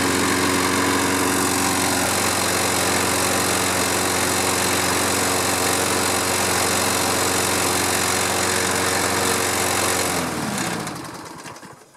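Toro Recycler walk-behind lawn mower's small engine running steadily, fully hot after about twenty minutes of running, then shut off about ten seconds in and spinning down to a stop near the end.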